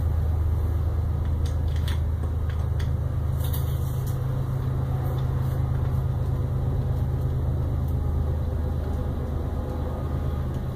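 A loud, steady low rumble, with a few light clicks of small screws and acrylic parts being handled in the first few seconds.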